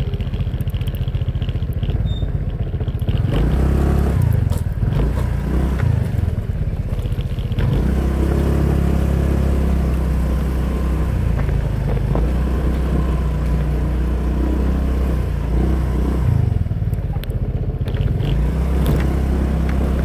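Honda PCX scooter's single-cylinder engine running under way. The engine note shifts up and down for the first few seconds, holds steady through the middle, and eases off and picks up again near the end.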